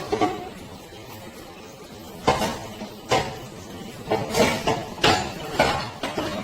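A series of irregular sharp knocks and clinks of hard objects, about half a dozen, unevenly spaced.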